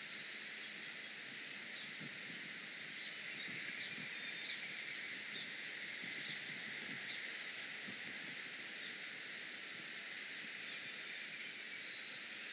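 Outdoor ambience from a nest camera's microphone: a steady hiss with scattered faint, short high chirps from distant birds.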